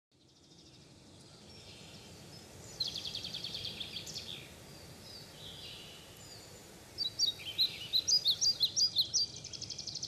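Songbirds singing over a soft outdoor hiss that fades in from silence: a fast trill about three seconds in, then livelier, rapidly repeated chirping song from about seven seconds on.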